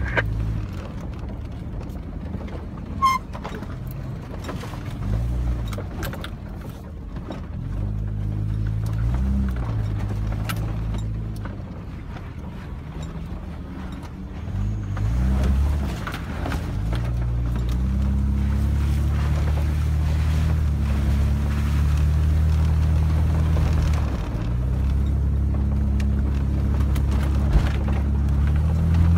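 Four-wheel-drive engine heard from inside the cabin, crawling along a rough dirt track, its revs rising and falling several times, then holding steadier and a little louder in the last third. Short clicks and rattles from the vehicle bouncing over the ruts come through now and then.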